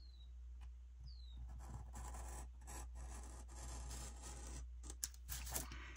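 Pen writing on a paper planner sticker: faint scratching strokes of the tip on the paper.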